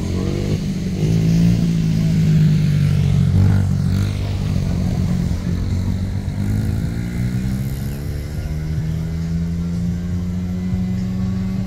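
A motor engine running, its pitch climbing steadily through the second half as it speeds up.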